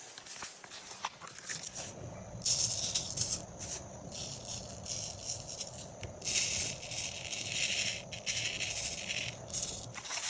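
Fine coloured sand hissing and pattering as it is sprinkled from a plastic spoon onto a sticky sand-art card and shaken across it, in two stretches of a second or more each, the second about six seconds in.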